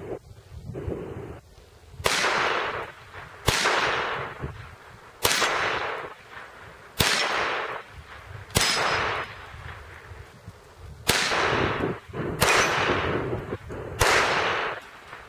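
Walther P22 .22 LR pistol firing eight single shots, about one and a half seconds apart, each shot trailing off over about a second.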